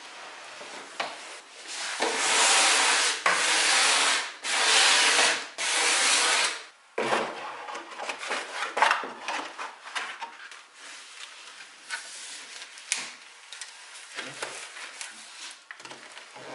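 Wood being rubbed in about four long, loud strokes, each about a second. Then a thin wooden panel is handled and laid into a wooden cabinet bottom, with light scrapes and knocks.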